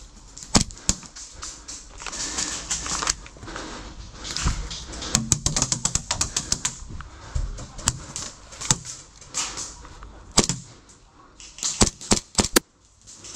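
Airsoft pistol shots from a TTI JW4 Pit Viper replica: sharp cracks fired irregularly, some single and some in quick strings of several shots.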